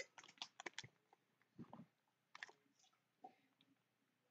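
Near silence with faint, scattered mouth clicks of someone chewing a jelly bean.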